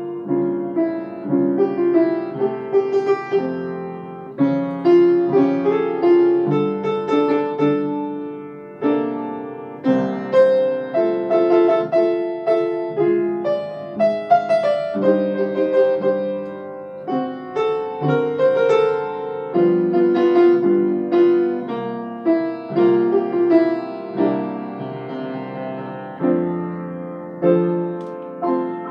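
Solo grand piano playing a slow piece, chords and melody notes struck and left to ring and fade.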